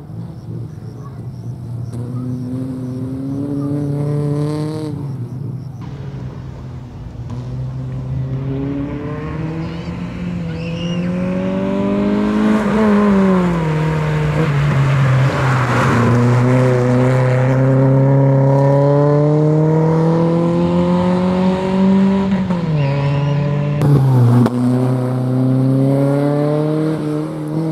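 Racing car's engine being driven hard through a slalom course, its revs climbing and falling. The pitch drops sharply twice, about twelve and twenty-four seconds in. It is loudest around the middle, as the car passes close by.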